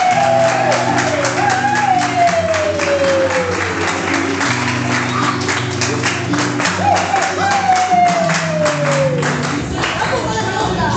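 Argentine folk dance music with long descending melody lines over a steady low accompaniment, and handclaps keeping time with the beat.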